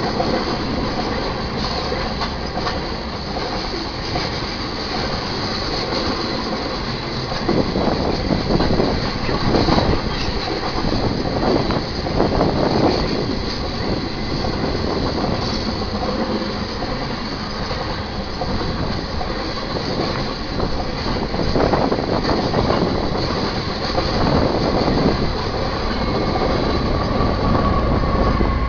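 Loaded coal hopper cars rolling past: a steady rumble of steel wheels on rail with repeated clanks and knocks. Near the end the rear distributed-power GE ES44AC diesel locomotive arrives, adding a deeper engine sound.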